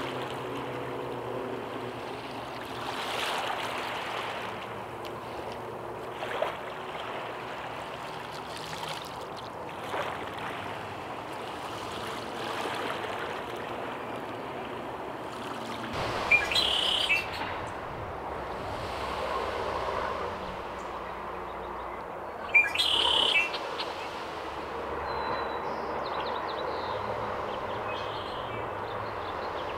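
Steady outdoor hiss of moving air or water, with a male red-winged blackbird singing two short songs in the second half, about six seconds apart.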